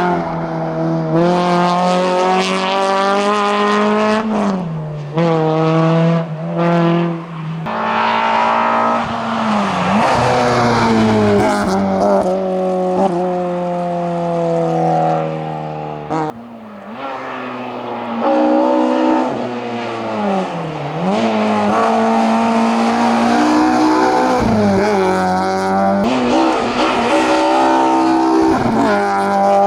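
Race car engine at full throttle, its pitch climbing through each gear and dropping sharply at the shifts, with a brief lift-off about halfway through before it pulls hard again.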